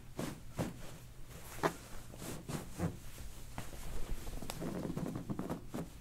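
Handling noise on a padded treatment table: irregular soft knocks and fabric rustling as a patient's legs are lifted, bent and shifted, with a denser patch of rustling near the end.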